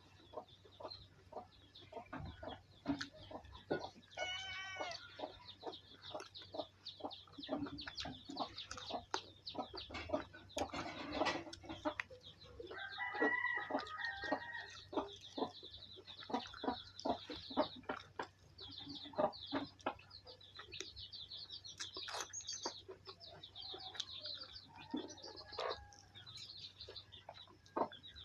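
Close-miked eating of chicken curry and cucumber: steady chewing and crunching with many short wet clicks and smacks. A short pitched cry comes about four seconds in and another about thirteen seconds in.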